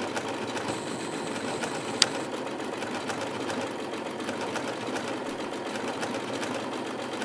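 Domestic sewing machine fitted with a Schmetz hemstitch (wing) needle, running at a steady speed through light fabric on a built-in decorative stitch, with rapid, even needle strokes. A single sharp click about two seconds in.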